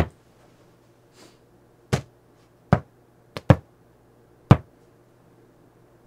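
Basketball being dribbled on a hard floor: six sharp bounces at uneven intervals, two of them in quick succession about three and a half seconds in.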